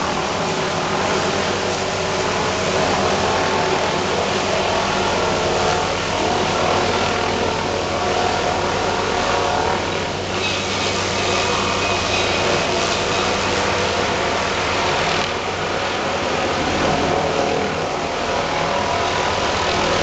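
Tree-trimming helicopter carrying a long hanging saw boom, flying overhead: a steady, loud drone of rotor and engine.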